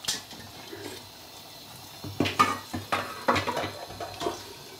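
A large metal cooking pan being rinsed at a kitchen sink, with water running. From about two seconds in there is a run of irregular clanks and knocks of the pan.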